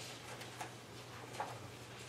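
Quiet room tone in a pause between words: a faint steady low hum with a few soft ticks.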